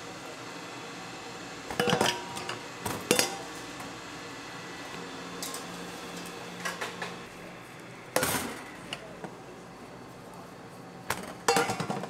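Kitchen utensils and dishes clinking and knocking while a cake is worked on: a few separate knocks, the loudest about eight seconds in and a quick cluster near the end, over a low steady hum.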